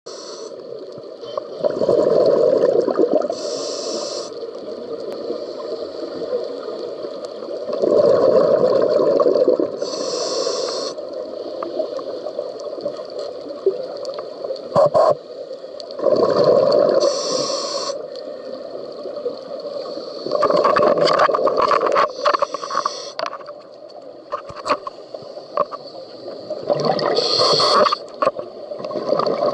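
Scuba diver breathing underwater through a regulator. About five breaths come roughly every six seconds, each a rush of exhaled bubbles paired with a short hiss from the regulator, with scattered sharp clicks between.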